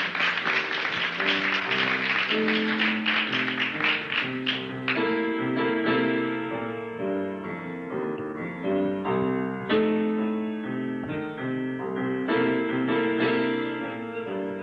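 Instrumental introduction of a song played live, led by keyboard chords that change every second or so, busier and brighter in the first few seconds.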